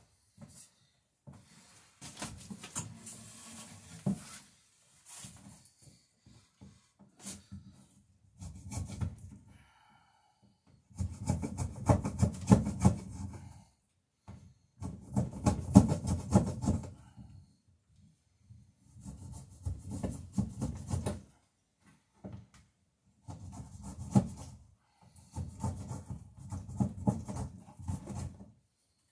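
A hand tool scraping wood in repeated runs of rapid strokes, each run a second to three seconds long with short pauses between, the loudest runs about halfway through; a wooden part is being shaped by hand to fit.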